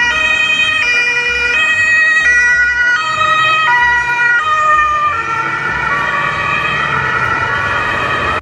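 Two-tone ambulance siren alternating between a high and a low note, each held a little under a second. After about five seconds the notes blur together, and it cuts off suddenly at the end.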